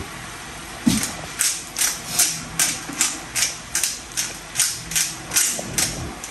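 White pepper shaken from a small spice jar over a frying pan: after a single knock about a second in, about a dozen short, crisp shakes follow at an even rhythm of roughly two and a half a second.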